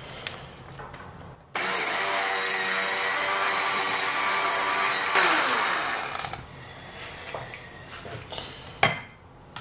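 Electric hand mixer switched on about a second and a half in, its motor whirring steadily as the beaters churn pancake batter in a glass bowl; it is switched off about five seconds in, the pitch falling as it spins down. A sharp knock near the end.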